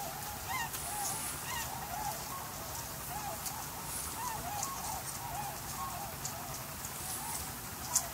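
A flock of wild waterbirds giving many short, overlapping honking calls, over a steady low background rumble. A sharp click comes near the end.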